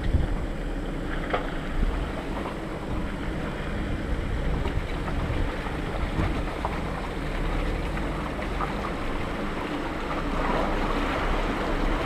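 Off-road vehicle's engine running low and steady as it crawls through muddy, water-filled ruts, with water sloshing around the tyres and wind rumbling on the microphone. The sloshing grows louder near the end.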